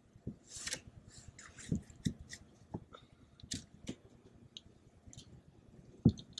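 Small, scattered water splashes from a sturgeon rolling at the surface beside a kayak, mixed with light clicks and knocks. There are a few dull thumps, the loudest just before the end.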